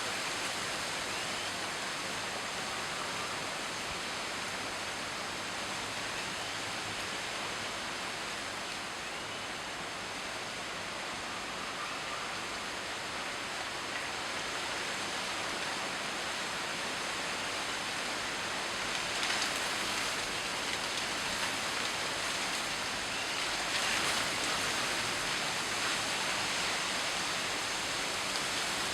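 Steady rain falling in wind, an even hiss that swells briefly twice in the second half.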